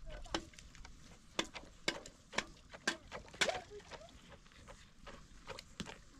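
Wooden pestle pounding in a mortar: sharp knocks about two a second, loudest through the middle and fainter near the end.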